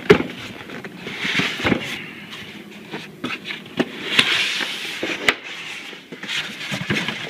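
Cardboard box and packing being pulled, scraped and rustled while a boxed benchtop planer is worked out of its carton, with irregular sharp snaps and crackles.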